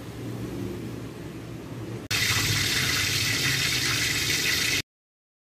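Stovetop cooking sounds: a low steady hum for about two seconds, then a sudden step up to a much louder steady hiss of a pot of baby back ribs braising in patatim sauce. The hiss cuts off abruptly shortly before the end.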